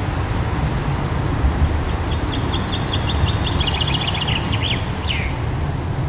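Wind buffeting the microphone with a steady low rumble, while a small songbird sings one rapid phrase of repeated high notes, starting about two seconds in and ending with a quick downward slur.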